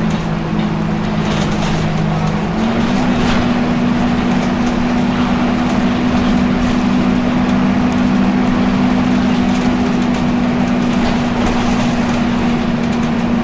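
Volvo B10BLE bus idling with its engine cooling fan running: a steady droning hum that steps up in pitch about two and a half seconds in, then holds.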